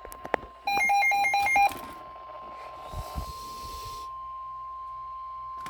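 NOAA Weather Radio warning alarm tone: one steady electronic tone held through, announcing a severe thunderstorm warning. About a second in comes a quick run of about six loud electronic beeps, and a short burst of static hiss follows a second later.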